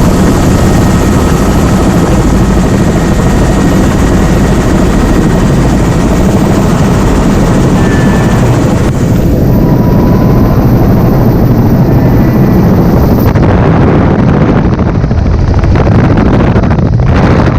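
Helicopter rotor and engine noise, loud and steady, during flight.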